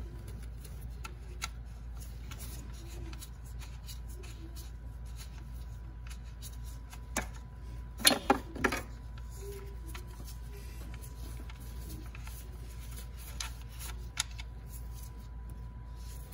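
Small handling noises as a threaded intake air sensor is unscrewed by a gloved hand from a plastic intercooler pipe: scattered faint clicks and rubs, with a short cluster of louder clicks about eight seconds in, over a steady low hum.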